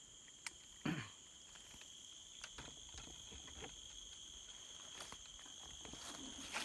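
Insects chirping in a steady, high-pitched chorus, with a few scattered taps and knocks, the loudest about a second in.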